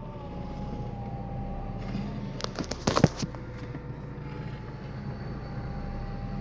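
Volkswagen Polo engine idling with a thin steady whine, and a short run of sharp clicks and knocks about two and a half to three seconds in: the noise the car makes when the steering wheel is turned, which the owner suspects comes from the hydraulic power steering pump.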